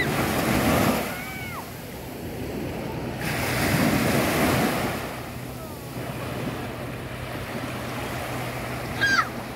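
Small waves breaking and washing up a sandy beach in a steady surf wash, swelling at the start and again around four seconds in. Children's distant shouts and squeals rise over it now and then.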